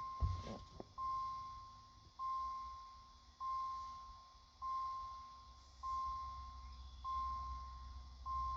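Car's dashboard warning chime ringing over and over, a single steady tone about every second and a quarter, each ring striking sharply and fading away, as with the key in the ignition set to accessory.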